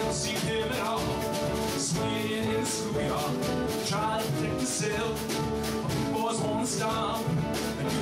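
A man singing a song live into a handheld microphone, backed by piano and a steady beat.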